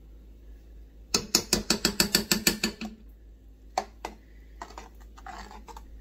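Metal spoon clicking rapidly against an enamelled cooking pot as miso is stirred into the soup: a quick run of about a dozen sharp clinks over two seconds, then a few scattered taps.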